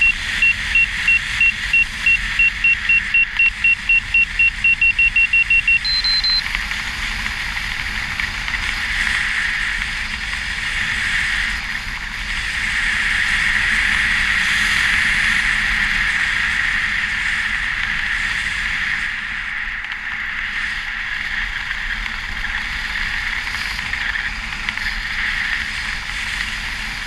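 Wind rushing over the camera's microphone during a parachute descent, with a skydiver's audible altimeter beeping at the start: short electronic beeps that come faster and faster for about six seconds, then one longer, higher tone. The wind grows louder for a while in the middle.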